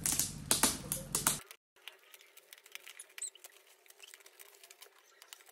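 Shiny gift-wrapping paper being torn and crinkled as a box is unwrapped: sharp rustles and clicks for about a second and a half, then fainter scattered crackling.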